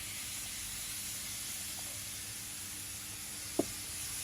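Marinated chicken breast sizzling skin-side down in a hot grill pan, a steady high hiss as it sears. A single short click about three and a half seconds in.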